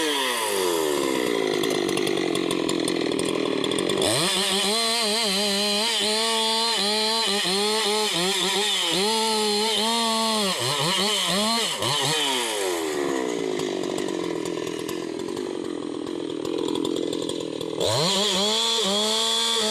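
Husqvarna 395XP two-stroke chainsaw bucking rubberwood logs. The engine drops back, then opens to full throttle about four seconds in, its revs wavering and dipping as the chain loads in the cut. It eases off after about twelve seconds and revs up again near the end.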